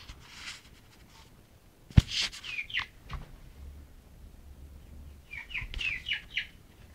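Short, high chirping calls from Aseel chickens: a few just after a sharp knock about two seconds in, then a quick run of five or six near the end.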